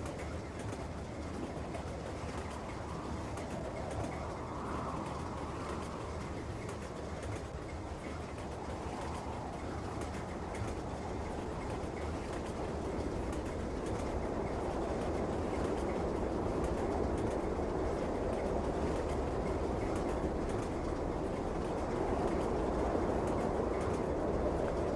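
A train running, a steady noise that grows gradually louder through the second half.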